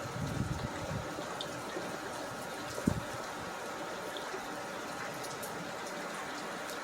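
Steady rain falling, with water trickling and splashing. A single sharp knock sounds about three seconds in.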